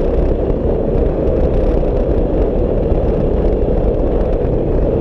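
Kawasaki Vulcan 900 cruiser motorcycle riding at a steady speed: the V-twin engine's low drone mixed with wind rushing over the camera microphones, loud and unchanging.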